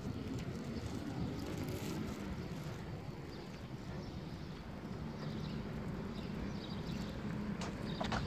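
Footsteps of a person walking on pavement, with a few sharp steps about half a second apart near the end, over a steady low background hum.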